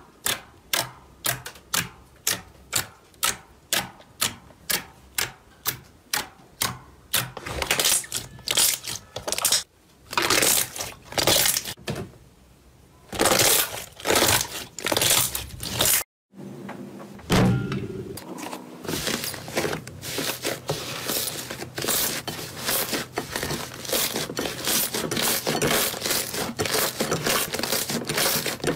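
Slime being worked by hand. Fingers pressing into a thick white slime give evenly spaced clicking pops, about two a second. Then the slime is stretched and folded with longer, louder sounds. After a brief gap, a blue slime kneaded in a glass bowl gives a dense, continuous crackling.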